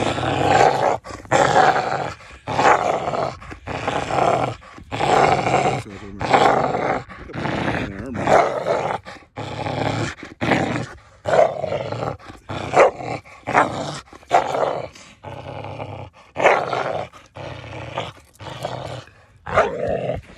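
Pit bull growling in repeated short bouts, roughly one a second, while tugging on a rope toy with her jaws locked on it.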